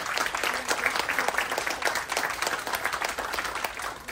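Audience applauding, many hands clapping together, beginning to die down near the end.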